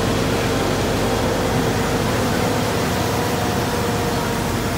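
Steady rush of water spraying from elevated fire-hose streams, mixed with fire-truck engines running, and a faint steady hum underneath.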